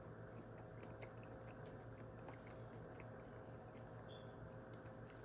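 Faint chewing of a bite of soft, spongy vegan brownie: scattered small mouth clicks over a steady low hum.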